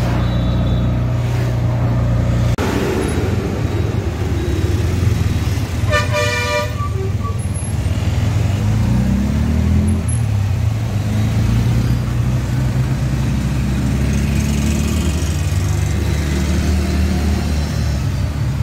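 Auto-rickshaw engine running steadily, its note shifting a few times as it changes speed, with a vehicle horn sounding once, briefly, about six seconds in.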